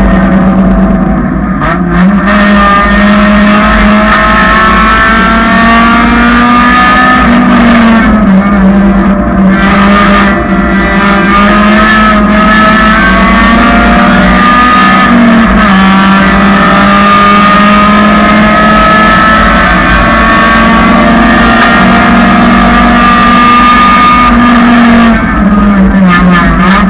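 Honda Civic track car's engine running hard and loud, its note climbing and dropping back several times as it is driven through the gears and corners.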